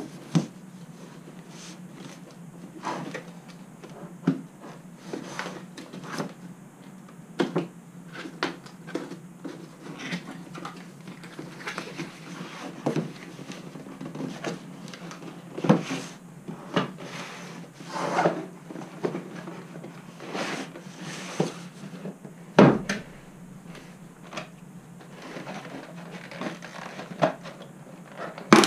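Cardboard box and clear plastic packaging being handled during an unboxing: scattered scrapes, rustles and knocks, with one louder thump about two-thirds of the way through, over a steady low hum.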